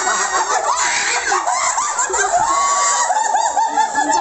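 Several people shrieking and laughing excitedly at once, high voices overlapping, with a run of quick repeated yelps in the second half.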